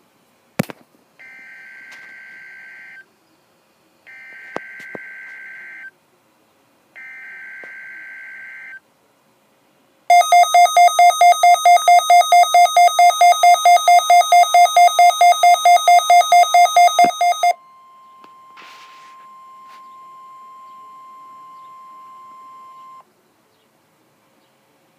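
NOAA Weather Radio alert signalling: three short bursts of warbling digital data tones (the SAME header), then a weather radio receiver's loud rapid alert beeping, about four beeps a second for some seven seconds, then the steady 1050 Hz warning alarm tone held for about five seconds.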